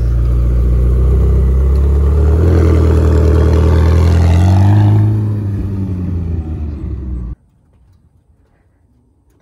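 McLaren 720S twin-turbo V8 running at low speed as the car creeps in and parks, the revs rising slightly about four seconds in. The engine is then switched off about seven seconds in and the sound cuts off suddenly.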